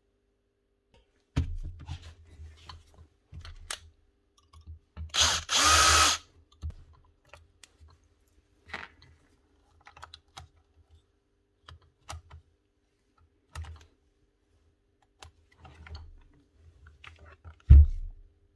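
A cordless drill-driver runs briefly in two short spurts about five seconds in, turning screws out of a magnetic drill's casing. Scattered clicks and knocks of the tool being handled follow, with one heavy thump near the end as the heavy magnetic drill is turned over onto its side on the bench.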